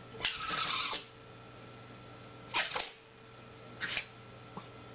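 A small pet animal sneezing three times: a longer sneeze near the start, then two short sharp sneezes about a second and a half apart.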